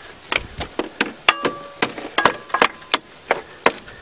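Rapid metal-on-metal blows, about four a second and unevenly spaced, a few of them ringing briefly: a hand tool striking an Eagle Talon's starter motor, tapped to free a starter that only clicks.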